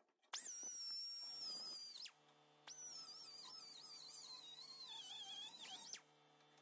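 Small high-speed grinder with a sanding disc cleaning up a weld on sheet metal: two runs of a high whine, the second longer, its pitch sagging as the disc is pressed into the metal and rising just before it stops.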